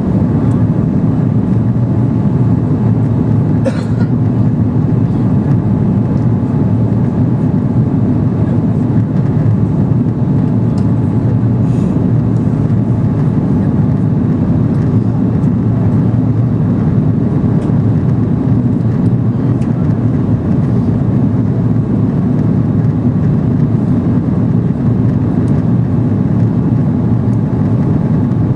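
Steady low roar of an Airbus A330 in flight, its engine and airflow noise heard from inside the passenger cabin, with a couple of faint clicks.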